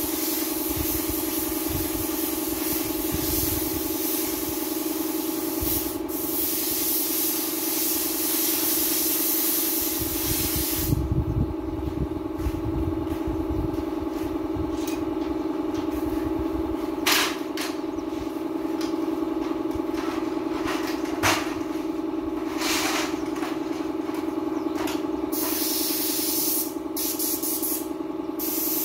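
Compressed-air paint spray gun hissing as paint is sprayed onto a wall. It stops about a third of the way in, gives a few short bursts, then resumes steadily near the end. A steady hum runs underneath throughout.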